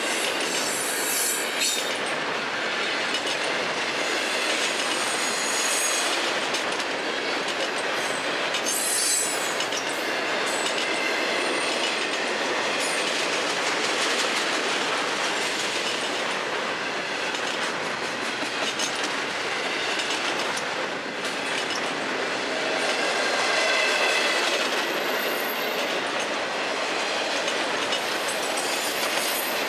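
Freight train cars rolling past at speed, double-stack container well cars and then autorack cars: a steady rumble of wheels on rail with clattering over the rail joints. Thin wheel squeal rises here and there, most around the middle and again later on.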